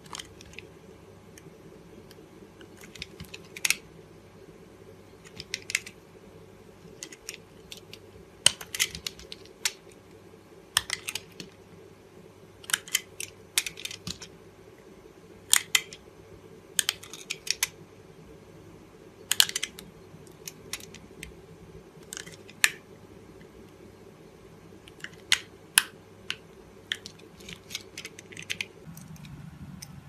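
Snap-off utility knife blade cutting into a bar of dry soap: crisp crunches and cracks in irregular clusters as small cubes break away, over a faint steady hum.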